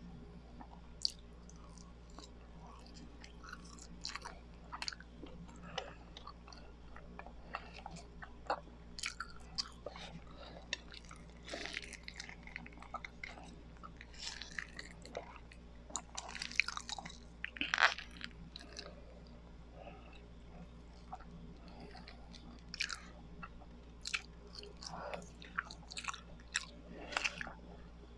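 Close-miked chewing of biko, a sticky sweet rice cake: irregular wet, sticky mouth clicks and smacks, busiest in the middle, over a faint low hum.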